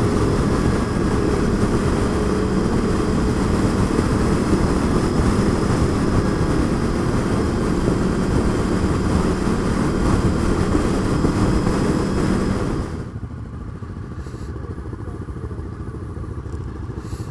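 Wind rushing over a helmet camera over the steady drone of a 1998 Honda VFR800's V4 engine at cruising speed. About thirteen seconds in, the rush drops away suddenly as the bike slows to a stop, and the engine settles to a quieter idle.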